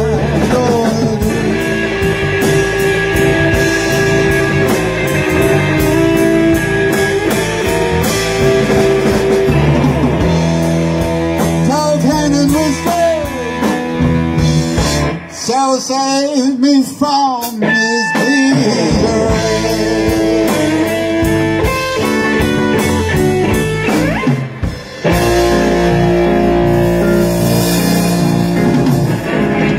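Live blues-rock band playing: electric guitars, bass and drums with a sung vocal. Around the middle the band stops for a few seconds, leaving only a few bending, wavering notes, then comes back in full.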